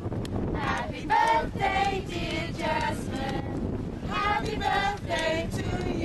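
A group of women and young children singing together, with wind rumbling on the microphone.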